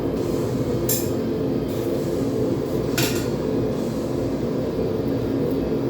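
Two ringing hammer blows on the railroad spike at the anvil, about two seconds apart, over a steady low roar.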